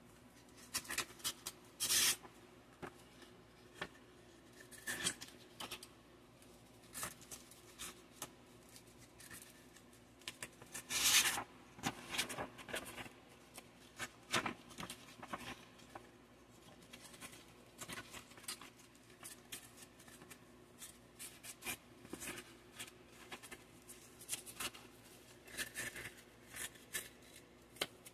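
Sheets of wet/dry sandpaper handled with gloved hands: stiff paper rustling, flapping and sliding over other sheets in short irregular bursts, the loudest about eleven seconds in.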